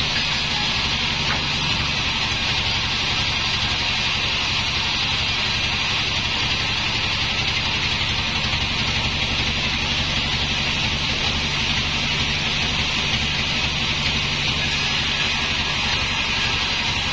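Sawmill band saw running and cutting through wood: a steady, loud saw hiss over the machine's low motor hum.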